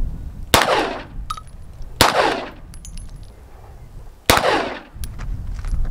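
Three handgun shots, about one and a half to two seconds apart, each followed by a short echo.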